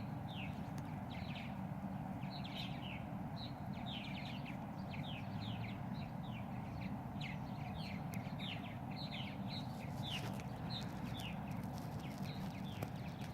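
Many birds chirping at once, a continuous chatter of short, quick, downward-sliding chirps, several a second and overlapping, over a steady low background rumble.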